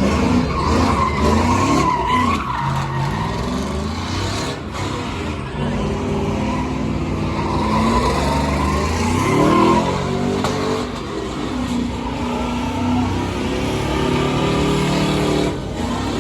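Truck doing a burnout: the engine revs up and down hard while the spinning tires squeal.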